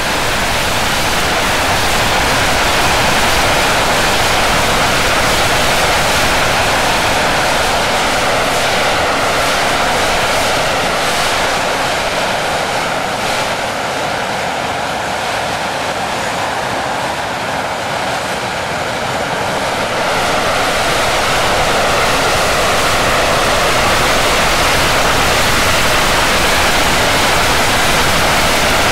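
English Electric Lightning's Rolls-Royce Avon turbojets running at high power: loud, steady jet noise that eases slightly in the middle and builds again about two-thirds of the way in.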